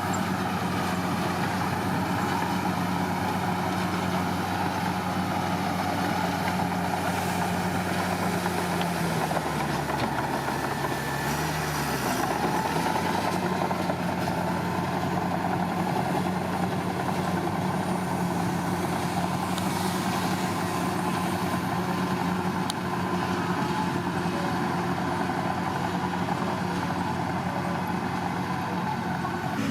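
Bulldozer's diesel engine running steadily. Its pitch sags for a few seconds about nine seconds in, then climbs back.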